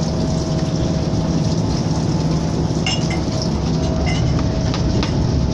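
Steady drone of a heavy motor yacht's diesel engines and the hull rushing through the water at high speed, heard inside the cabin, with a few light clinks and rattles.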